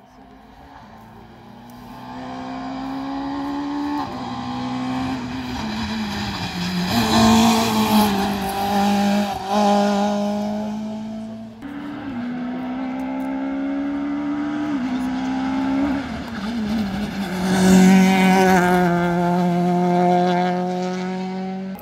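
Rally car engine accelerating hard and shifting up through the gears, its pitch climbing and dropping back at each shift. It breaks off suddenly a little past halfway, and the revving starts again and grows loudest near the end.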